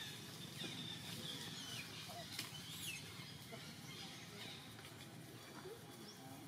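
Short high chirps and squeaky pitch glides, several in the first half and fewer later, over faint steady background noise, with one brief click about two and a half seconds in.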